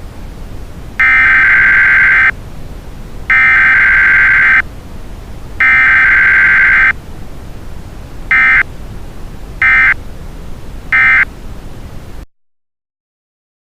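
Emergency Alert System SAME data bursts: three long bursts of warbling, modem-like digital tones, then three short bursts, over a steady background hiss. The short triple is the end-of-message code that closes the alert. Everything cuts off to silence near the end.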